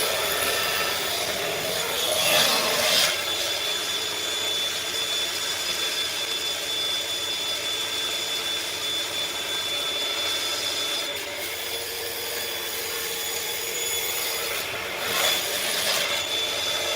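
Homemade table saw running steadily with a constant whine, its blade cutting through wood twice, about two seconds in and again near the end.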